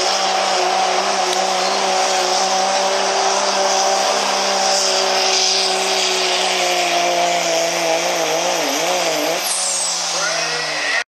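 Turbo-diesel pickup engine running flat out under heavy load while pulling a sled, a steady high-revving drone. Its pitch sags and wavers a couple of seconds before the end, and a high whine glides down near the end before the sound cuts off suddenly.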